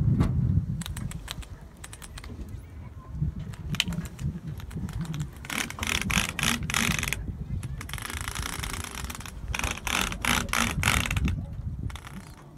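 A run of sharp clicks and rattles, thickest in two clusters in the second half, over a low rumble of wind on the microphone that fades after the first couple of seconds.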